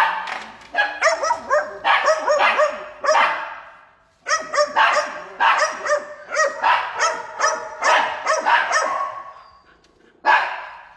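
A young shepherd–border collie mix puppy barking over and over in quick volleys, with a brief pause about four seconds in and one last bark near the end.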